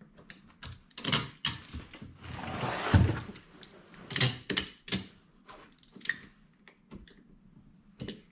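Hand tools clicking, scraping and knocking against a polypropylene plastic gas tank as an old repair is cut out and the hole beveled. A longer scrape about two seconds in ends in the heaviest knock.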